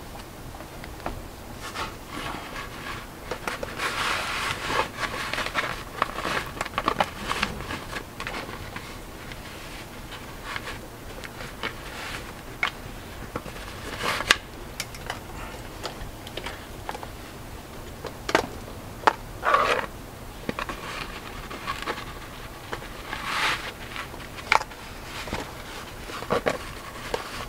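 Hands handling a wig and its cap on a mannequin head: irregular rustling and scraping of hair and fabric with small clicks, in uneven bursts.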